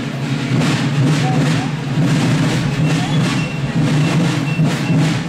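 Marching drums of a folkloric military procession band beating a steady march rhythm, about two strokes a second, under the chatter of onlookers.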